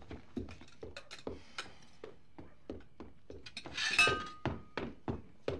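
Cutlery clinking and tapping on china plates as people eat, in a string of small, quiet clicks. About four seconds in comes a louder clink with a short ringing tone.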